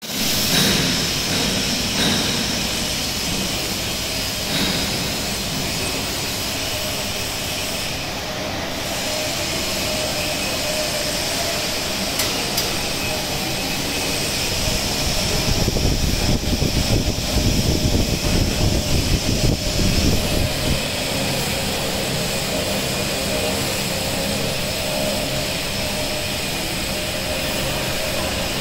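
Two-colour stack-type flexographic printing press running steadily with kraft paper feeding roll to roll: a continuous mechanical whir of rollers and gearing with a faint steady tone. A louder, fluttering rumble rises for a few seconds past the middle.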